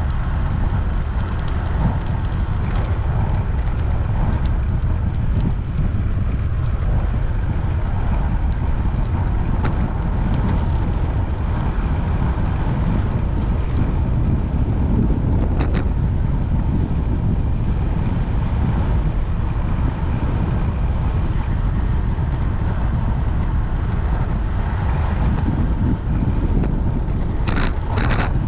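Wind rushing over the microphone of a bike-mounted camera while riding along a cycle path: a steady, deep rumble. A brief click about halfway through and two more near the end.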